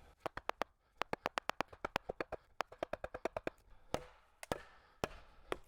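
A rapid run of light, sharp taps, about seven a second, then a few single taps: a wooden mallet tapping a froe into a cedar block to split off shakes.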